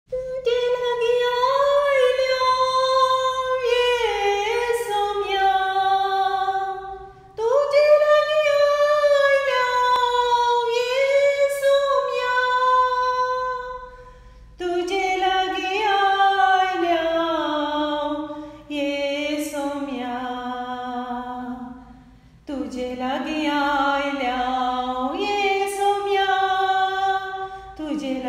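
Wordless singing: a melody sung in long held notes, in phrases of several seconds each with short breaks between them.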